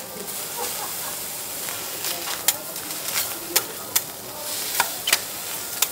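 Tiger prawn sizzling on a steel teppanyaki griddle, with several sharp clicks and taps of the chef's knife and spatula against the steel in the second half.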